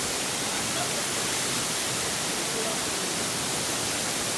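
Waterfall: falling water rushing with a steady, unchanging hiss.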